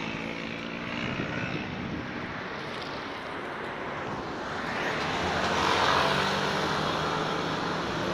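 Road traffic going by: vehicle engines and tyre noise, swelling as a vehicle passes close about five seconds in.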